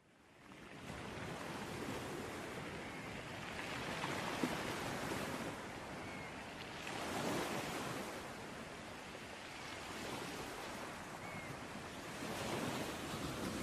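Sea waves washing onto a shore: a steady rush of surf that swells and eases every few seconds. It fades in from silence at the start.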